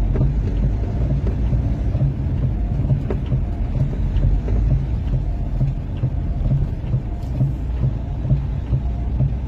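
Vehicle engine and road noise heard from inside the cab: a steady low drone with a faint throb, with a few faint ticks.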